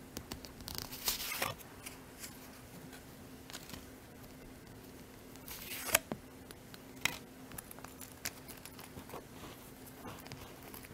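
Handling of a canvas card case: paper inserts rustling and scraping as they are slid out of its pockets, loudest about a second in and again about six seconds in, with a few light clicks.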